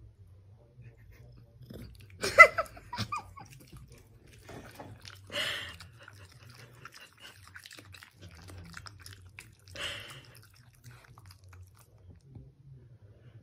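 A dog chewing, with a few separate crunchy bites, the loudest about two seconds in, among quieter mouth sounds.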